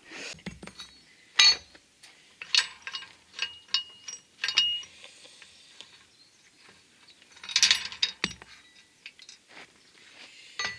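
Irregular metal clinks and knocks from handling steel parts and tools at a welding job, with one sharp knock about a second and a half in and a short ringing note of struck metal around the middle.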